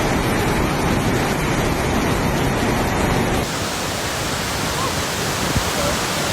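Rushing floodwater: a steady, loud noise of fast-moving water. The sound changes abruptly about three and a half seconds in.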